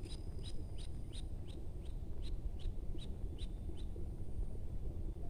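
A bird calling a series of about eleven short, high, evenly spaced notes, nearly three a second, each sliding down slightly; the series stops about four seconds in.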